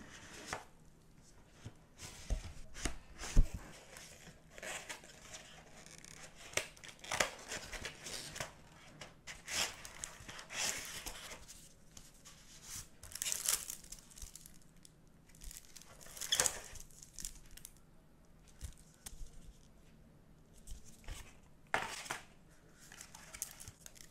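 Gloved hands handling a cardboard box and its paper inserts: rustling, sliding and scraping of paper and card in short strokes, with a couple of sharp knocks about three seconds in, the loudest sounds.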